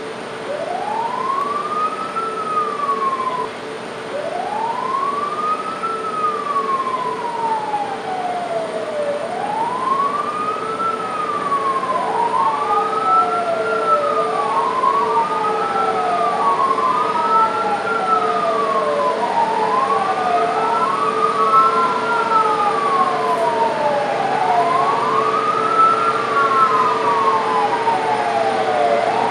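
Airport fire trucks' sirens wailing over and over, each wail rising quickly and falling slowly, with two sirens overlapping from about twelve seconds in, sounded during a water-cannon salute. A steady hum runs underneath.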